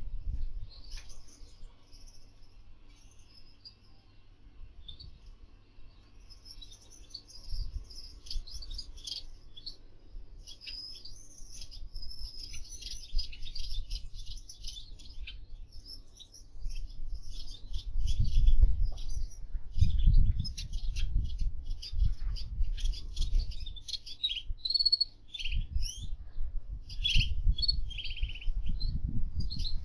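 Gouldian finches chirping and twittering: many short, high calls overlapping throughout. A low rumble comes in a little past halfway and is loudest around two-thirds of the way through.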